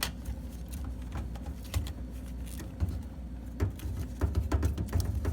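Scattered small clicks and knocks from hands taking paper bills out of a vending machine's bill acceptor, over a steady low rumble.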